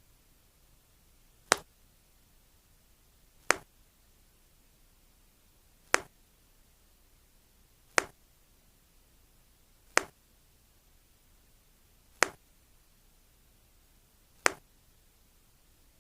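Seven sharp single clicks, evenly spaced about two seconds apart, over a faint quiet background.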